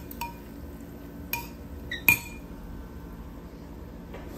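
Metal cutlery clinking against a ceramic salad bowl and plate while salad is served: a few sharp clinks, the loudest about two seconds in.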